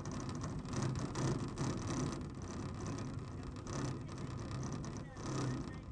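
Chairlift in motion: the steady running noise of the haul cable and chairs, rising and falling in gentle swells.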